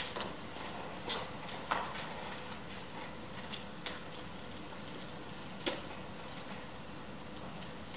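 Hall room tone with a few scattered light knocks and clicks, the loudest nearly six seconds in: footsteps on the wooden stage and players shifting before the music starts.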